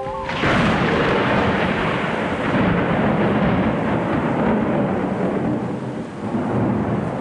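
Thunderstorm sound effect in a performance backing track: a sudden thunderclap cuts off the mallet-percussion music, then rolls into a steady rumble of thunder and rain.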